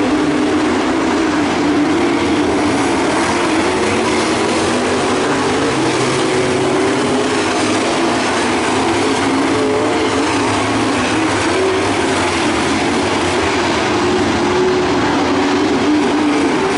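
Pro Stock dirt-track race cars' V8 engines running at racing speed around the oval. It is a loud, steady engine drone whose pitch wavers up and down as the cars lift and get back on the throttle.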